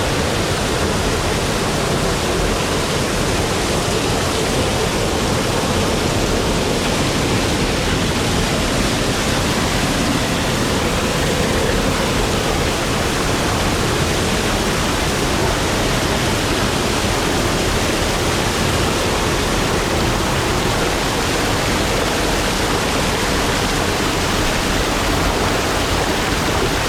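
Running water rushing steadily, with no breaks or changes.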